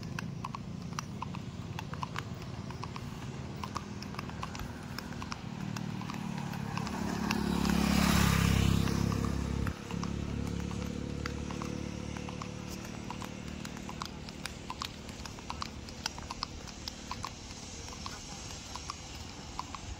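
A mare's hooves clip-clopping, a steady run of sharp clicks. A vehicle passes in the middle, swelling to a loud rumble about eight seconds in and cutting off about two seconds later.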